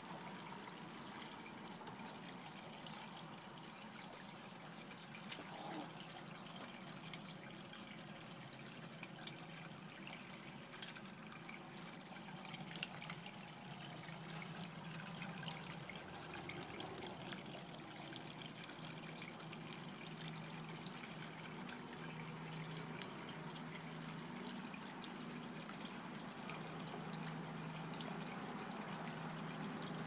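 Water trickling steadily from a milk-can fountain, spilling over the rim of the metal can and running down its sides into a stone-filled basin, with a few sharper splashes.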